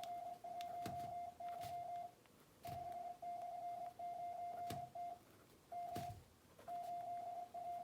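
Computer-generated Morse code at 25 words per minute: a single steady beep keyed rapidly on and off in runs of dots and dashes, broken by short pauses between characters and words. A few soft knocks sound now and then underneath the beeping.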